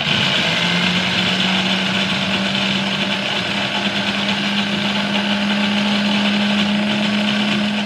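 Preethi Zodiac mixer grinder's motor switched on, rising briefly to speed and then running with a steady loud hum as the juicer jar crushes peeled pomegranate seeds into juice.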